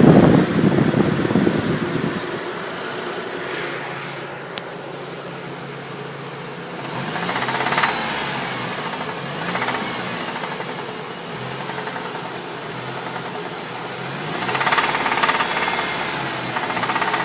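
1998 Dodge Neon's four-cylinder engine running with a knock. It swells louder twice, about seven seconds in and again near the end, and a loud rushing noise covers the first two seconds.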